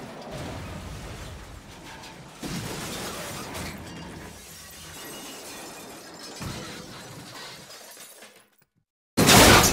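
A crash sound effect of glass shattering and debris breaking, with fresh hits about two and a half and six and a half seconds in, fading out after about eight and a half seconds. A second, much louder breaking crash begins just before the end.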